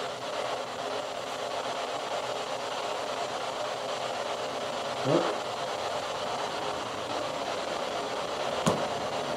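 Steady hiss, with a short low sound about five seconds in and a single sharp tap near the end as something small falls onto the floor.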